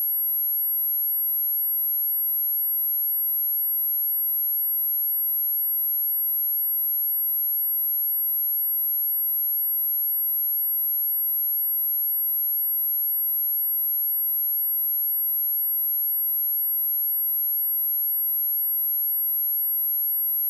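A single steady pure tone at 11551 Hz, a very high, unbroken whistle-like sine wave at constant level: a speaker test tone.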